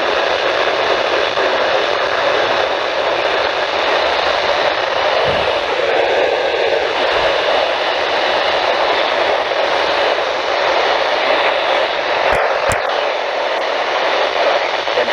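Steady hiss of radio static from a weather-band radio receiver whose broadcast signal has faded out, with two short clicks about twelve seconds in.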